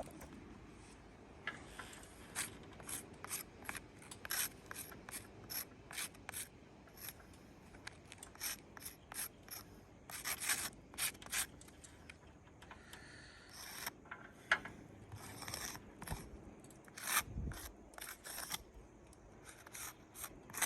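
Short rasping scrapes, one after another at an uneven pace, from work on asphalt roof shingles.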